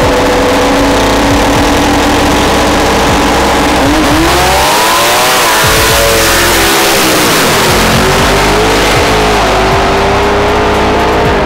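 Two turbocharged Ford Mustangs, an S550 and an S197, revving hard at full throttle. Their engine note holds steady for the first few seconds, then about four seconds in it climbs and drops repeatedly as they accelerate away through the gears.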